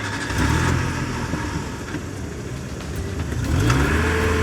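A car engine running steadily, then revving up in a rising, swelling glide about three and a half seconds in.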